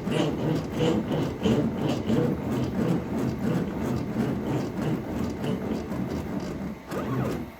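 Rhythmic rubbing or scraping on wood, with repeated strokes about twice a second over a low hum.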